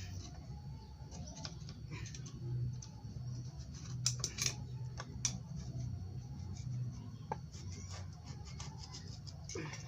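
Irregular scratching and small clicks of hand-cleaning the piston and cylinder head of an opened small motorcycle engine, a little louder about four seconds in, over a steady low hum.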